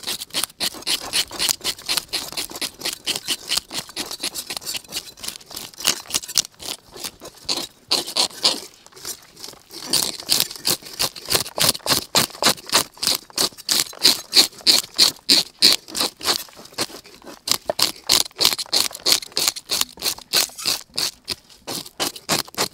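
Plastic fish scaler scraping scales off a whole fish on a wooden chopping board, in fast repeated strokes several times a second, with the loose scales rattling. The strokes stop briefly about eight seconds in and then go on.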